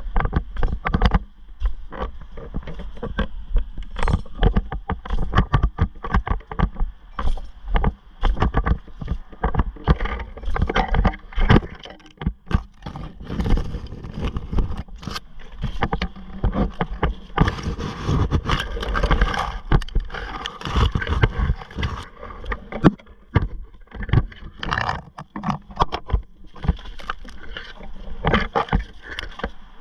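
Irregular knocks, scrapes and rustles of a climber working up a palm trunk on a rope flipline, the rope and gear rubbing and knocking against the fibrous bark.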